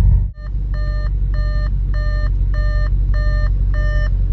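Audi RS5 cabin warning chime beeping steadily, a little under twice a second, with the cluster's 'switch off ignition before leaving car' warning showing. Beneath it is the low, steady drone of the 4.2 V8 at idle.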